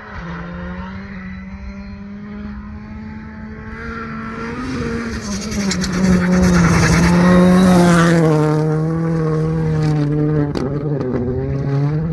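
A rally car's engine approaching at high revs, growing louder to its loudest a little past the middle, then its note dropping lower in steps as it goes by.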